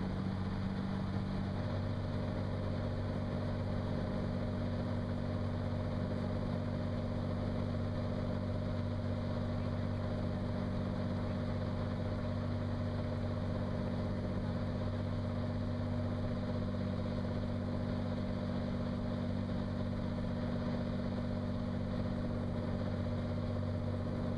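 Cirrus SR22's 310-horsepower six-cylinder piston engine and propeller droning steadily in cruise, heard inside the cabin, with a slight change in tone about a second and a half in.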